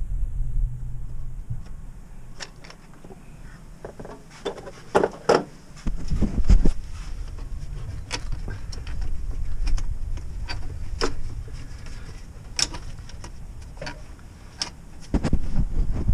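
Irregular metallic clicks and clinks, with rustling and bumping from gloved hands handling engine parts and hand tools. A couple of heavier thumps come about six seconds in and near the end.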